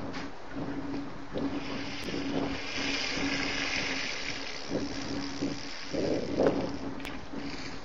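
Water rushing and splashing at a waterhole where elephants are drinking. A low steady hum breaks off and comes back throughout, and there is a louder burst of splashing about six seconds in.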